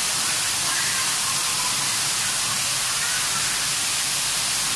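Floor jets in a shallow pool churning the water, a steady hissing rush of spray and bubbling.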